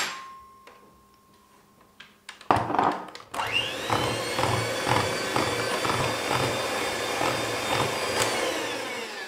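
Electric hand mixer starting about two and a half seconds in, its motor whine rising quickly to speed, then running steadily as its beaters whip an egg into butter-and-sugar cake batter, slowing near the end.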